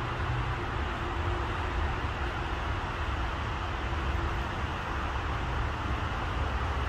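Steady outdoor background noise: a constant hiss with a deep rumble beneath it and a faint hum, with no distinct events.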